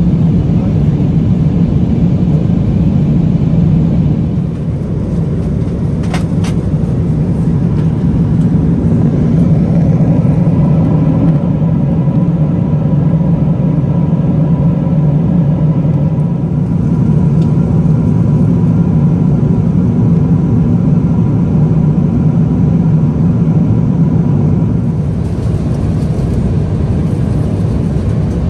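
Steady cabin rumble of a Boeing 777-300ER at cruise: the low roar of its GE90 engines and airflow past the fuselage, with a faint steady hum. A single short click about six seconds in.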